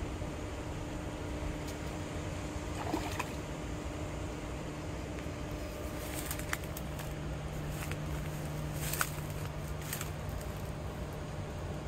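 Steady outdoor background noise with a low hum, broken by a few short clicks and taps, the sharpest about nine and ten seconds in.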